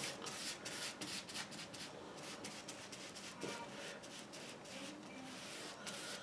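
Foam sponge brush scrubbing a gritty mix of fine pumice gel and acrylic paint back and forth across archival board: a scratchy rubbing. It comes at about four strokes a second at first and eases off midway.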